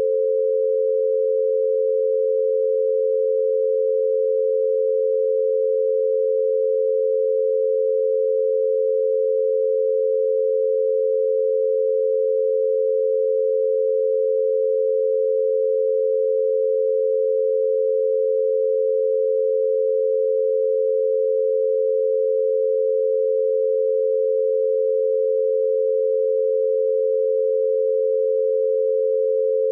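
Binaural beat: two steady pure tones close together in pitch, around 500 Hz and set 88 Hz apart, held unbroken at constant loudness. It is meant for headphones, one tone in each ear.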